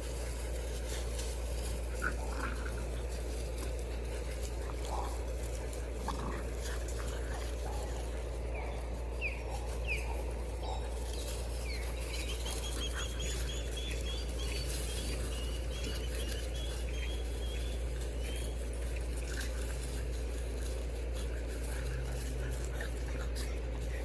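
French bulldog puppies giving short, high squeaks and whines, with a quick run of repeated squeaks around the middle, over a steady low hum.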